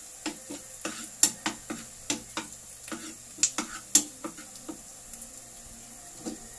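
Metal spoon scraping and knocking against a frying pan as garlic and onion are stirred in oil, over a faint steady sizzle: sautéing the garlic until it browns. The knocks come irregularly, two or three a second, and thin out near the end.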